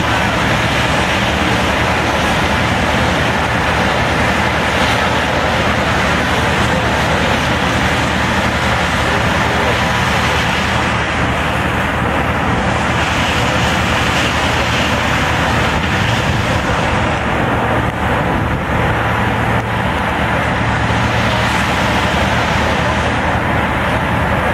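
Fire engines' diesel pump engines running under load, pumping water to master streams: a loud, steady, continuous drone.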